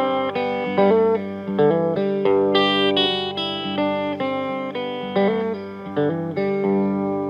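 Guitar playing the instrumental intro of a blues-folk song, picking notes and chords about every half second, each ringing out and fading, with no singing.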